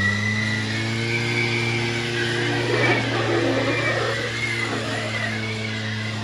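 Small engine of a kids' Polaris Predator quad running at a steady held throttle while the quad slides in circles on a soapy trampoline mat, with a higher whine wavering above the engine note.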